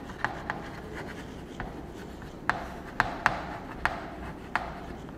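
Chalk writing on a chalkboard: a string of sharp, irregular taps and short scratches as letters are stroked out.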